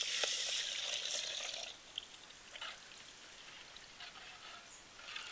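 Water poured into a pan of hot frying onion-and-spice masala, hissing and sizzling as it hits; the hiss stops less than two seconds in, leaving only faint scattered crackles.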